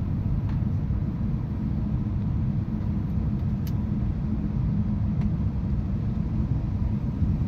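Steady low rumble inside an Airbus A319 cabin on the ground before takeoff, with a few faint clicks.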